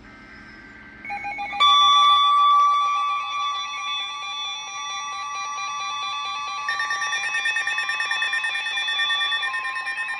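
Electronic emergency alert tones for a severe thunderstorm warning, several overlapping steady, pulsing alarm tones. A tone starts about a second in, a louder set joins just after, and more tones join about two-thirds of the way through.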